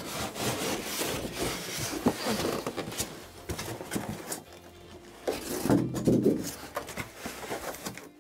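Foam packing blocks rubbing and scraping against each other and the cardboard box as a heavy sewing machine is worked out of its packaging, with small knocks and creaks of handling.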